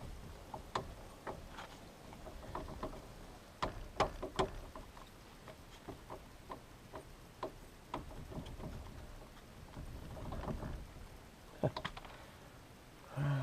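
Scattered metallic clinks, taps and knocks of hand tools working on a car's front suspension, with two sharper knocks about four seconds in and another near the end.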